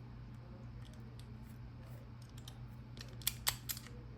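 Small plastic-and-metal clicks of a four-wheel Master combination lock's number wheel being turned step by step while the last digit is brute-forced, with a quick cluster of sharper clicks a little past three seconds in.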